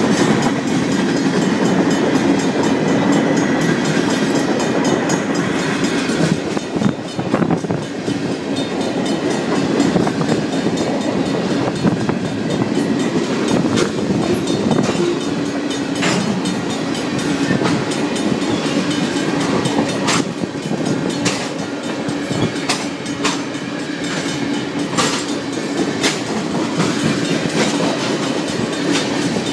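Freight cars of a Union Pacific manifest train rolling steadily past a grade crossing, their wheels clicking sharply over rail joints at irregular intervals. The crossing's mechanical warning bell rings under the train noise.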